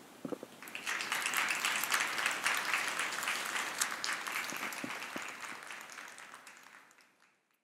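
Audience applauding. It starts under a second in and fades out near the end.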